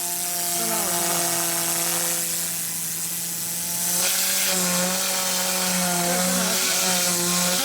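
Compressed-air cyclone cleaner running: a steady rush of air hiss over a constant droning tone.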